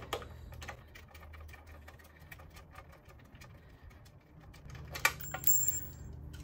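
Socket wrench ratchet clicking rapidly as the front axle holder nuts are spun off, then a few metallic clinks of nuts and washers being handled about five seconds in.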